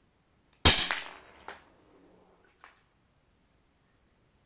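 Airsoft Colt 1911 pistol firing one sharp shot about two-thirds of a second in, the BB striking a wooden beam, followed by two faint clicks. Right at the end, a second, equally loud shot from an airsoft M24 sniper rifle begins.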